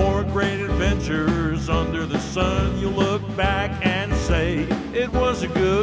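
Country song playing, with a steady beat under a wavering melody line.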